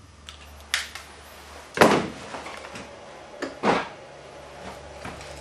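Wire strippers stripping the insulation off the ends of electrical wires for a pigtail splice: four sharp snapping clacks, the loudest about two seconds in.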